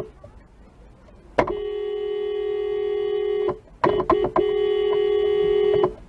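Car horn sounding one steady note: a long blast of about two seconds, three quick taps, then another long blast. Faint road noise fills the gaps.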